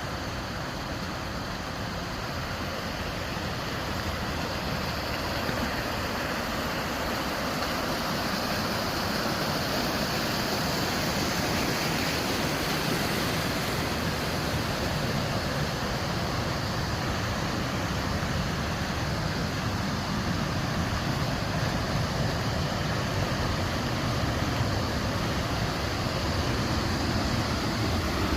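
Steady rush of flowing mountain stream water, growing gradually louder over the first several seconds and then holding.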